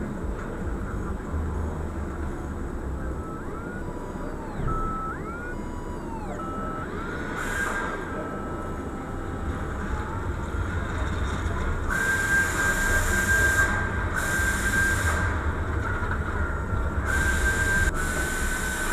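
Car-service workshop sounds: a pneumatic air tool whining at a high pitch, with several bursts of hissing air over a low steady hum.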